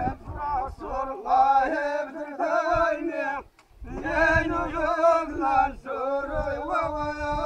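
Men's voices singing a chanted folk song in long held phrases. The phrases break off briefly about three and a half seconds in and again near six seconds.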